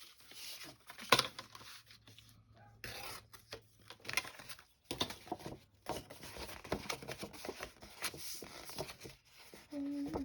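Paper being torn by hand and handled, with irregular crackling and rustling and a sharp snap about a second in.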